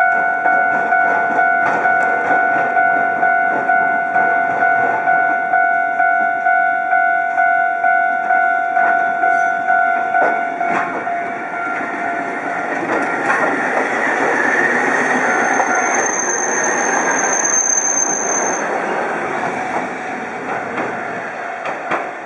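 An electronic warning bell rings for about the first ten seconds, pulsing about twice a second, the pattern of a level-crossing signal. Then a Hankai Tramway Mo701-class tram runs past with a rising rumble of wheels on rail and a brief high wheel squeal.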